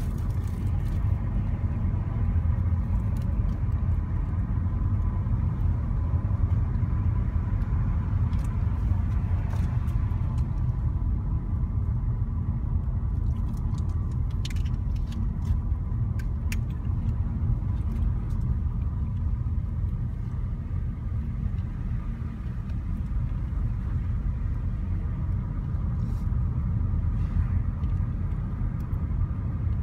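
A car in motion heard from inside its cabin: a steady low rumble of tyres and engine at an even road speed.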